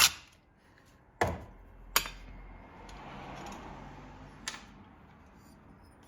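A small engine's parts being handled by hand: a couple of sharp clicks and knocks, then a soft rustle and scrape with one more small click, as the ignition coil is worked free of the power head.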